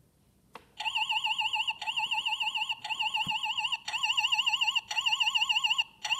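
Buzz Lightyear alarm clock's electronic alarm going off after a click about half a second in: a high, fast-warbling beep tone repeated in bursts of about a second with short breaks.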